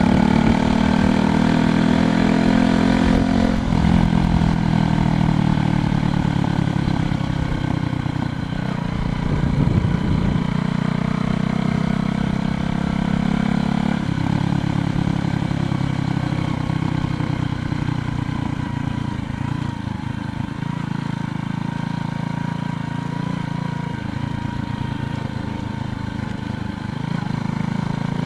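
Steady wind and road rumble from riding a bicycle along a road, with a motor vehicle passing in the first few seconds, its engine tone gliding.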